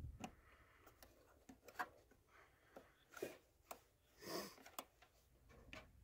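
Faint small clicks and rustles of hands working wires and plastic connectors, with two brief louder rustles about three and four seconds in.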